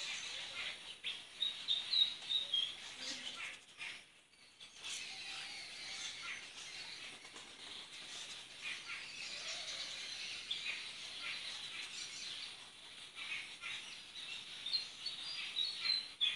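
Hands rubbing and pulling through long hair close to the microphone: a dry, crackly rustling hiss that drops away briefly about four seconds in. A few short high bird chirps come near the start and again near the end.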